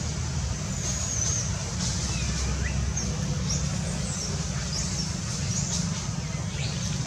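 Outdoor ambience: a steady low rumble with a series of short, high-pitched chirps over it that rise or fall quickly.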